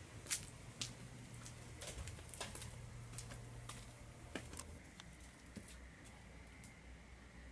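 Footsteps on concrete: a string of light, irregular clicking steps, thinning out after about five seconds.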